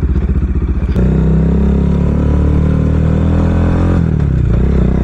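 Bajaj Dominar 400's single-cylinder engine running through an aftermarket Akrapovic full-system exhaust as the bike pulls away, very loud. The engine speed jumps up about a second in and holds steady, then dips briefly about four seconds in and climbs again.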